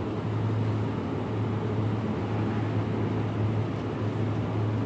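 Steady low hum of supermarket refrigerated display cases, with an even background noise of the store.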